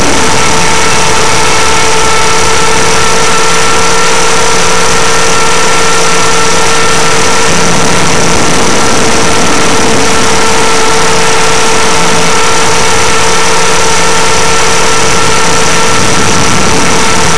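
Align T-Rex 500 ESP electric RC helicopter in flight, heard through its onboard camera's microphone: a steady, unchanging motor whine with several high tones over a loud, dense rushing noise from the rotors and vibration.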